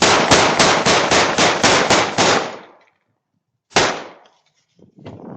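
A rapid string of about nine gunshots, roughly four a second, followed about a second and a half later by one more shot, each echoing briefly.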